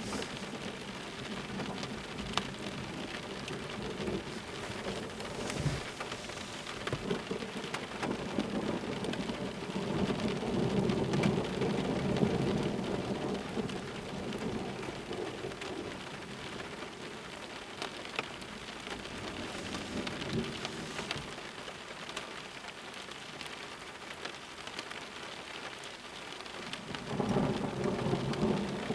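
Steady rain during a thunderstorm, with scattered close drops ticking. A low thunder rumble swells about a quarter of the way in and again near the end.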